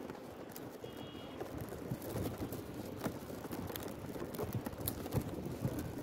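Wind buffeting the microphone of a mobile phone hanging from a flying kite: a steady rumble with scattered light ticks and rattles.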